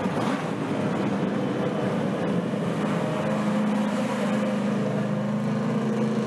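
Stock race car engines running as the cars roll through the pits: a steady, loud engine drone that strengthens about three seconds in.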